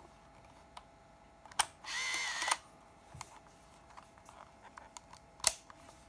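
Canon Prima Junior S Macro compact film camera firing: a sharp shutter click, then its film-advance motor whirs for under a second and stops with a click. Another loud sharp click comes near the end.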